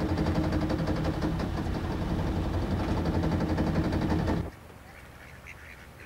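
Pleasure boat's engine running steadily, heard from inside the wheelhouse. It cuts off abruptly about four and a half seconds in, leaving a much quieter background with faint duck calls.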